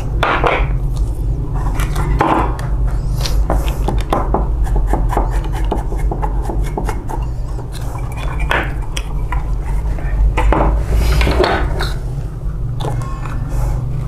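Parts of a photocopier's developer unit being handled and worked on by hand. There are frequent short clicks and knocks of plastic and metal parts, with some scraping and rubbing, over a steady low hum.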